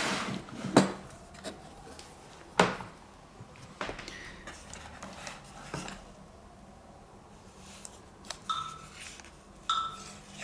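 Clicks and knocks of a hard plastic tool carry case being unlatched, opened and handled, with a cordless drill lifted out of its moulded tray; the loudest knock comes about two and a half seconds in, and two short squeaks come near the end.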